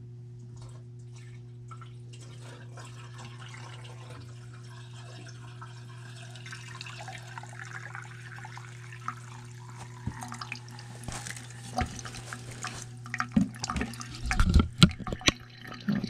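Water running and trickling out of a furnace condensate drain line as it is flushed clear of a clog, over a steady low hum. Knocks and clatter of the plastic drain fittings being handled come in over the last few seconds.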